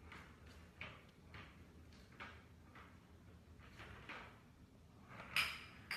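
Catit Fireball light-up ball rolling and rattling through the plastic Catit Senses 2.0 Play Circuit track as a cat bats at it: a string of short plastic clatters about every half second, the loudest about five seconds in.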